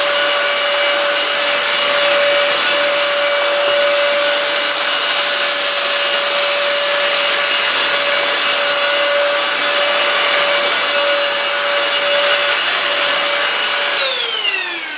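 Silvercrest SHAZ 22.2 F7 cordless cyclone vacuum cleaner running in boost mode on thick carpet: a loud, steady high-pitched motor whine with rushing air, which is switched off about fourteen seconds in, its pitch falling as the motor spins down.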